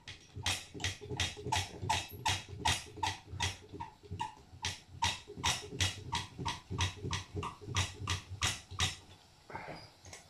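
Hand air pump of a Tilley X246B storm lantern worked in quick, even strokes, about three a second, pressurising the fuel tank. The pumping stops about nine seconds in.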